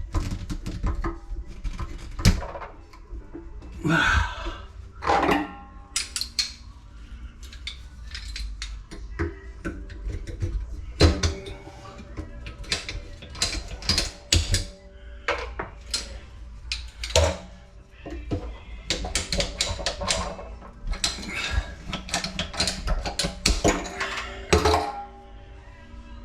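Tools and pipe being handled: many clinks and knocks, with a few short scraping strokes as the pipe is trimmed or deburred.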